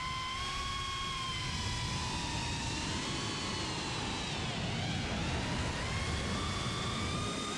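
FPV cinewhoop drone's motors and propellers whining in flight, the pitch sagging about two-thirds of the way through and climbing again as the throttle changes, over low wind rumble.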